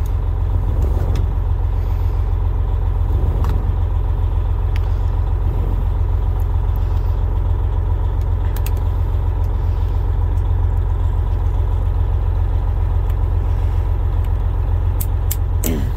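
Diesel engine of a Freightliner Coronado truck idling steadily, a low even rumble, with a few faint clicks over it.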